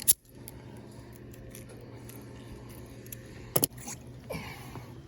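Handling noises while a hooked bass is being unhooked: a sharp click right at the start and another about three and a half seconds in, with quieter rustling between.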